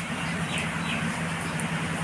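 Marinated chicken skewers sizzling and crackling on a wire grill over hot charcoal, a steady hiss with a low hum underneath.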